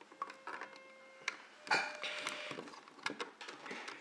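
Plastic LEGO bricks of a home-built candy dispenser clicking and knocking as its slide is worked to let candy out, with one louder clatter a little under two seconds in.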